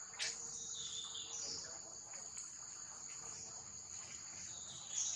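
Steady high-pitched droning of insects in the grass, with a brief sharp sound just after the start and another near the end.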